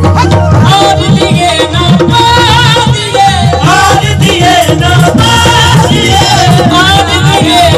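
A bhajan performed live and loud: a singer's voice with drums and instrumental accompaniment keeping a steady beat.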